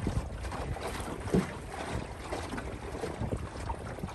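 Water splashing and slapping against the hull of a Springbank 15 sailing dinghy under way, in irregular splashes with one louder slap about a second and a half in. Wind noise rumbles on the microphone throughout.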